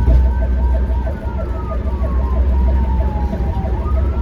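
Ambulance siren wailing, heard from inside the moving ambulance: one slow tone falling over about three seconds, then rising again near the end, over the steady low rumble of the vehicle on the road.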